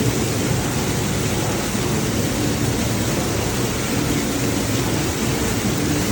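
A car driving: steady road and wind noise with a low hum underneath, unchanging throughout.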